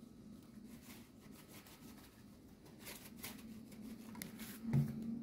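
Faint scratchy shaking of a lemon pepper shaker, the seasoning sprinkling onto raw salmon fillets in a baking dish, over a steady low hum.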